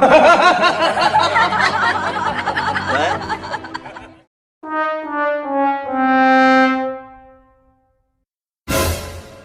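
The classic "sad trombone" comedy sound effect: four descending muted-brass notes, "wah, wah, wah, wahhh", the last held longer with a wobble. Before it comes about four seconds of a busier, denser sound effect, and a short sharp effect sounds near the end.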